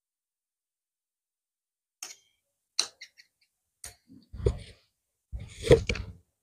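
Cloth-handling noises starting about two seconds in: a few short sharp clicks, then two rustling thuds as the cut layers of fabric are moved and pressed down on a hard tiled floor, the second one the loudest.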